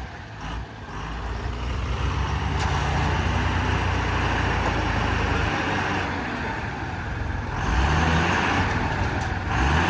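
Heavy diesel engine revving under load while a stuck truck is being worked free. It builds from about a second in, eases off past the middle, then picks up again near the end, with a steady hiss over the engine.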